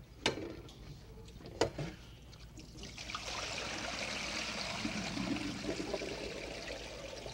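Cold water being poured out of a pot of blanched string beans into a kitchen sink, the draining step after the beans have been refreshed to stop their cooking. Two sharp knocks come first, then the pour starts about three seconds in and runs steadily.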